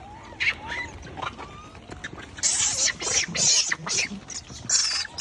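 Wild macaques screeching: several harsh, noisy calls in quick succession from about halfway through.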